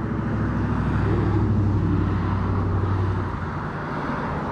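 A passing motor vehicle's engine, a low steady drone that fades away about three seconds in.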